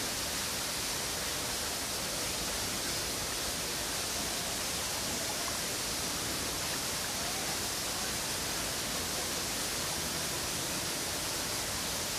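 A steady, even high hiss that does not change or break, with no distinct calls or knocks standing out from it.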